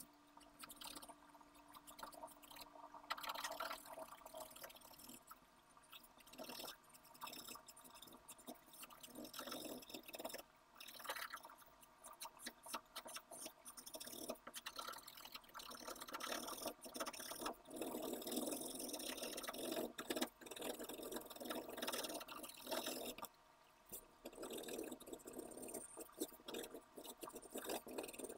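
Pencil scratching on paper in quick, repeated shading strokes, with a short pause near the end.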